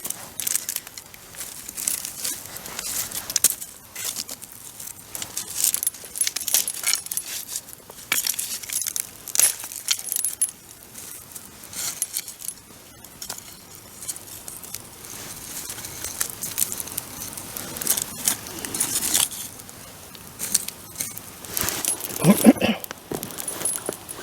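Wood bonfire crackling, with irregular sharp pops and snaps. A brief low voice-like sound comes near the end.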